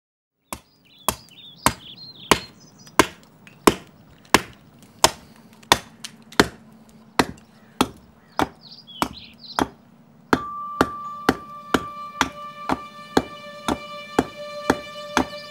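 Steady, evenly spaced chopping strokes of a hand tool biting into a block of wood, each a sharp crack, about one and a half a second and quickening a little later on. About ten seconds in, a held musical note comes in underneath.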